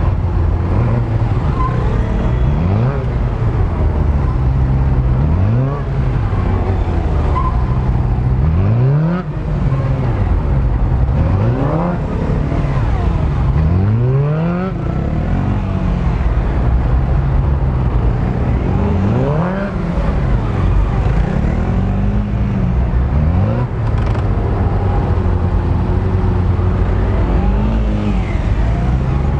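Motorcycle engine revving up and falling back again and again, in short bursts of acceleration and deceleration as the bike is ridden through tight turns around cones. A steadier engine drone runs underneath.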